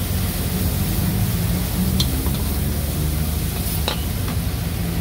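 Chopped aromatics sizzling in hot oil in a steel wok while a metal spatula stirs and scrapes them, clinking sharply against the pan about two seconds in and again near four seconds. A steady low rumble runs underneath.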